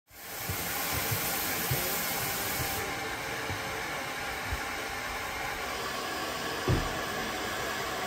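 Narrow-gauge steam locomotive No. 762 venting a steady hiss of steam, fading in at the start and brighter for the first few seconds. A few low knocks sound through it, the loudest about two-thirds of the way through.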